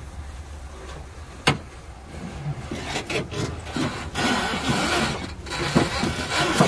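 Thick battery power cable being pulled through the stripped car body, rubbing and scraping against the metal, louder and more continuous in the second half. One sharp knock about a second and a half in.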